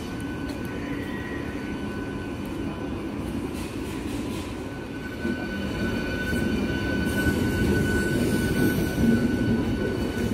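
Three-phase MEMU electric multiple unit running along the platform and passing close by. Its rumble grows louder about five seconds in, with a steady high whine over it.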